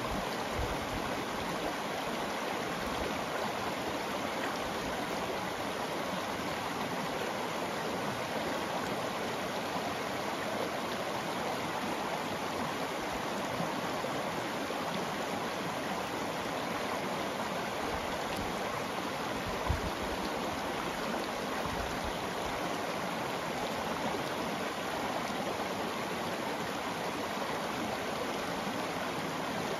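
Shallow river flowing over a rocky bed, its small riffles giving a steady rushing and burbling of water.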